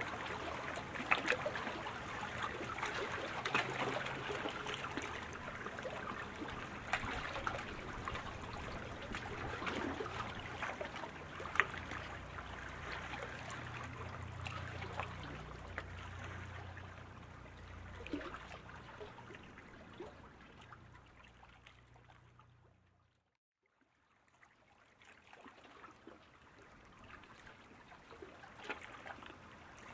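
Water splashing and trickling, with scattered sharp clicks and a low hum underneath. It fades out about two-thirds of the way through, then comes back fainter.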